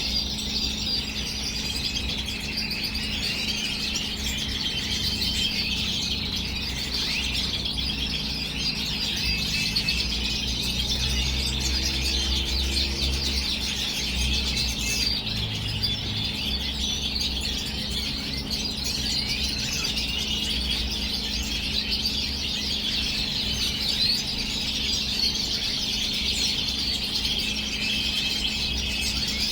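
European goldfinches and red siskins chirping and twittering in a dense, unbroken stream of song, over a steady low hum.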